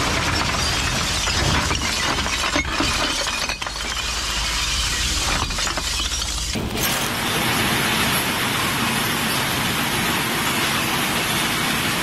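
Masses of glass bottles clinking and breaking as they tumble and slide in a heap of bottles. About six and a half seconds in it changes abruptly to a steadier, denser clatter of broken glass.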